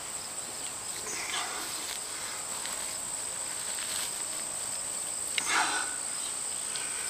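Insects singing one steady, unbroken high-pitched tone. Over it, hands scrape and pull at soil and grass while digging out a crayfish burrow: briefly about a second in, and more loudly about five and a half seconds in.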